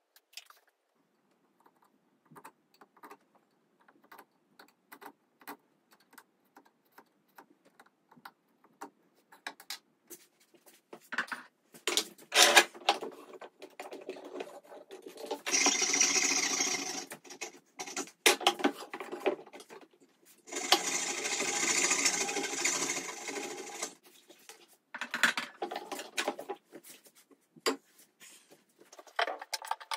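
Coping saw cutting the waste from dovetail joints in oak: two spells of quick, rhythmic saw strokes in the middle, the second the longer. Before them come scattered light taps and clicks of tools on the wooden workbench and a few sharper knocks.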